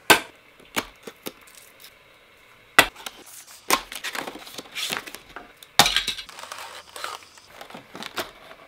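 Packaging being handled on a wooden tabletop: a cardboard box is opened and moved, with several sharp knocks and taps. The loudest come near the start and about three and six seconds in, between stretches of plastic bag crinkling.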